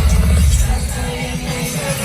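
Loud amplified pop music with a heavy bass beat over a concert sound system, during a sound check.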